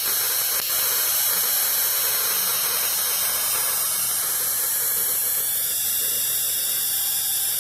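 Steady high-pitched electronic whine over a loud hiss, a cluster of thin tones whose upper ones slide up in pitch about five and a half seconds in.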